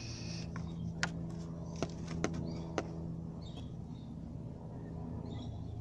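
Car engine idling steadily, with several sharp clicks in the first three seconds.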